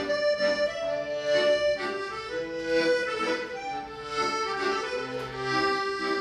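Piano accordion playing a tune in held notes that change every second or so.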